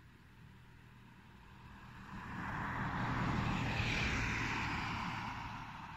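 A vehicle passing by: a rushing noise that swells over about two seconds, is loudest about three to four seconds in, then begins to fade.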